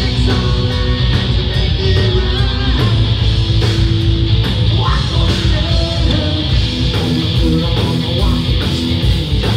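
Rock band playing live and loud: distorted electric guitar, bass and drums, with a singer's voice over the top.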